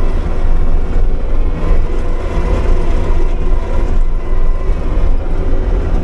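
Kubota SVL75-2 compact track loader's diesel engine running steadily under load, heard from inside the cab, while it drives a Bobcat Brush Cat rotary brush cutter through grass. A constant loud drone.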